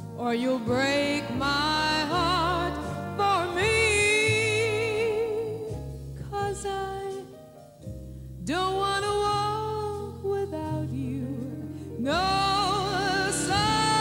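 A female vocalist singing with a big band behind her, holding long notes with wide vibrato, with a short pause in the voice a little past halfway.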